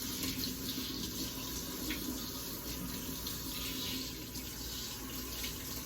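Water running steadily in a bath while a cat is being washed.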